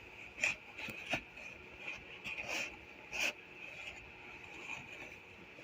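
Faint, scattered clicks and knocks, as of tools and parts being handled during an engine teardown, over a steady faint high whine.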